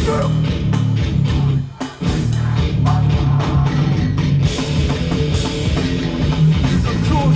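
Hardcore band playing live: distorted electric guitars, bass and drums. The band stops short for a moment about two seconds in, then crashes back in.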